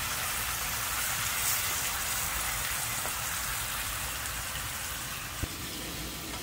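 Onions, sweet peppers and tomatoes sizzling steadily in a frying pan as a wooden spatula stirs them, with a single knock a little over five seconds in.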